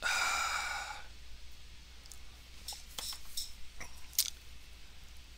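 A bright ringing sound lasting about a second, then half a dozen light, scattered clicks.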